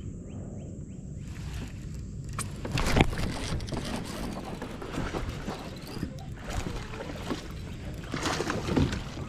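Kayak sounds on the water: irregular knocks and splashes over a steady low rumble of wind on the microphone, with one sharp knock about three seconds in and a busier cluster near the end.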